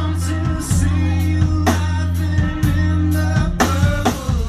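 Live band playing rock music: a drum kit over held low bass notes that change every second or so, with hard drum and cymbal hits about a second and a half in and again past three and a half seconds.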